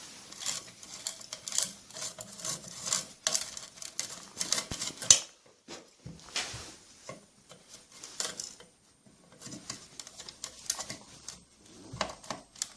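Screwdriver scraping and clicking in the screw holes of a Rancilio Rocky grinder's base, metal rubbing on metal and crushing coffee beans wedged in the holes. A sharp crack about five seconds in and another near the end.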